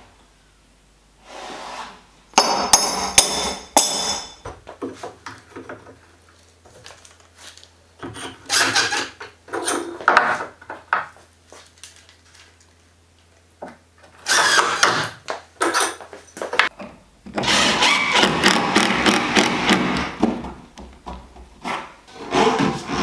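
Workshop handling and fastening noise: metal hold-down brackets clinking against the wood, with knocks, and a cordless drill driving screws in short runs, the longest a few seconds before the end.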